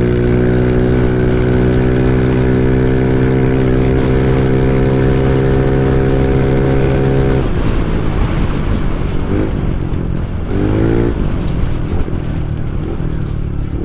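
Yamaha NMAX 155 scooter's single-cylinder engine, fitted with an aftermarket exhaust pipe, holding a steady drone under throttle at cruising speed, with wind noise on the microphone. About halfway through, the throttle is let off and the drone drops away, followed by two short rising revs.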